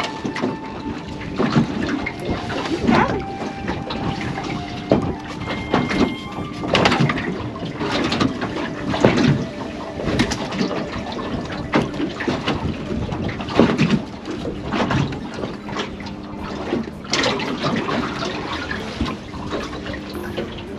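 Water splashing and sloshing in irregular strokes, with a faint steady hum underneath.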